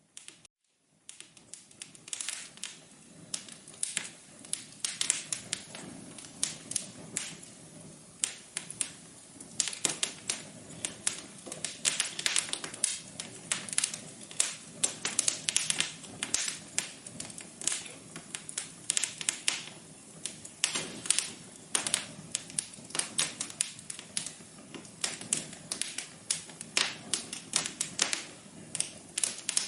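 Wood fire crackling in a fireplace: irregular snaps and pops, several a second, that start after about a second of silence.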